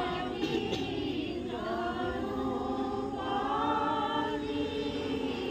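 A group of voices chanting a devotional naam together in long, drawn-out notes.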